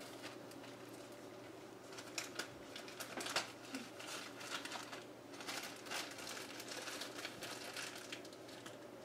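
Faint, irregular crackling and clicking over a steady low hum.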